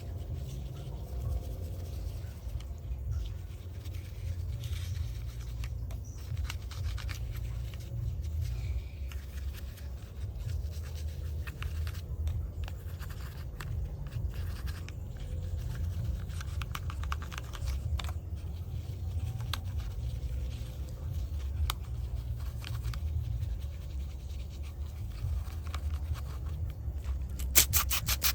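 Light scratching and scraping while a 1:24-scale diecast model car is cleaned by hand, over a steady low rumble. Near the end a fast, even rubbing starts.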